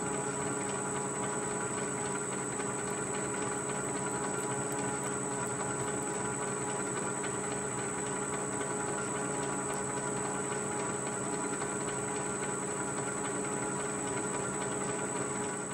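13-inch South Bend metal lathe running through a cut in an aluminium block: a steady mechanical hum with a thin high whine and a hiss, unchanging throughout.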